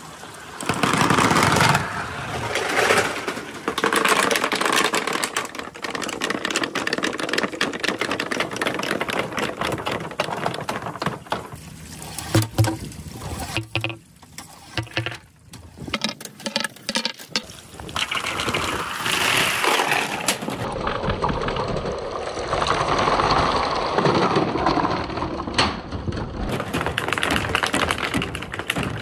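Running water pours down a marble-run chute while balls roll and clack, knocking against each other and the channel. The rapid clicks and clatter run through most of it, with a dip in level at about the midpoint.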